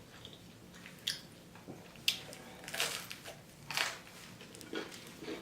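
Close-miked chewing of food: a handful of wet bites and smacks, roughly one a second.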